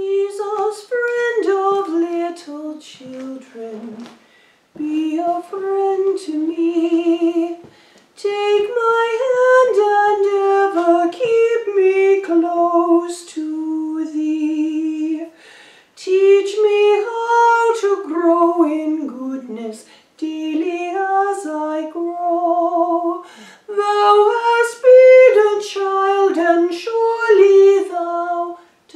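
A woman singing a song solo without accompaniment, in phrases of held notes with short breaths between them.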